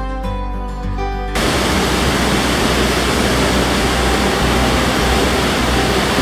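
Soft instrumental music for about a second and a half, then a sudden cut to the steady rush of a cruise ship's churning white wake.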